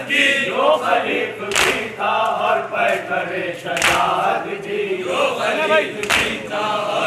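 Group of men chanting a Muharram noha in chorus, with a sharp slap in unison about every two seconds from chest-beating (matam).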